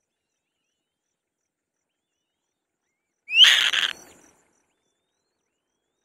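A single short, harsh screech from a black-shouldered (Elanus) kite at the nest, about three seconds in: a quick rising note that breaks into a rasp.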